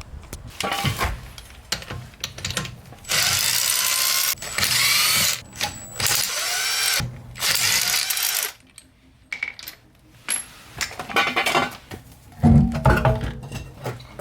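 A handheld power tool runs in four bursts of about a second each, between about three and eight and a half seconds in, with knocks and handling noise before and after.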